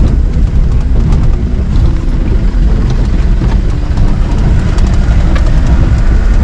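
Off-road jeep running along a rough track: a steady, loud engine and ride rumble.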